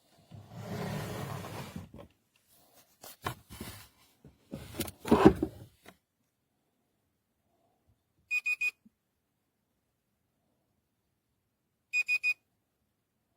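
Biometric pistol safe's keypad or fingerprint reader giving quick triple electronic beeps, once about eight seconds in and again near the end. Before that there is handling: rustling, a few clicks and a knock against the safe's metal box.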